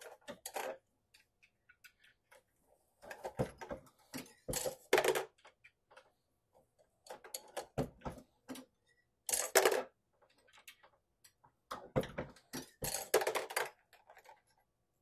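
Metallic clicks and clatter in several short bursts as a reloading press, its die and hand tools are handled and set down.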